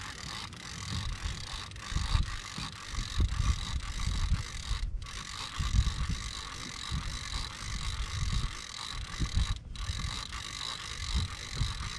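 Wind buffeting the camera microphone in irregular gusts over a steady hiss, with the sound cutting out briefly twice.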